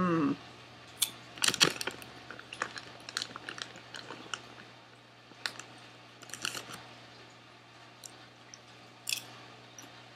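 Popcorn being chewed in short, scattered crunches, with a snack bag crinkling as a hand reaches into it about six seconds in.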